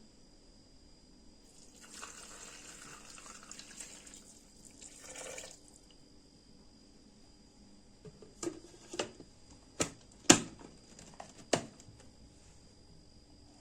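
Water running or being poured for about four seconds, then about five sharp knocks, like utensils or pieces of taro set down on a hard kitchen surface.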